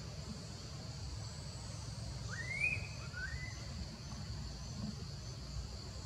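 Two short animal calls about half a second apart, each rising quickly in pitch and then holding, over a steady high insect drone and a low rumble.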